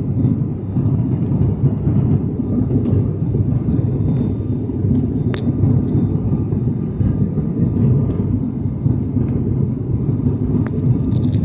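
Cabin noise of an ATR 72-600 on descent: the steady low drone of its twin Pratt & Whitney PW127 turboprop engines and propellers, with a faint steady whine above it.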